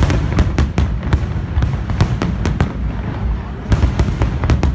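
Fireworks salute: aerial shells bursting in a rapid, irregular string of sharp bangs, several a second with a brief lull midway, over a constant low rumble.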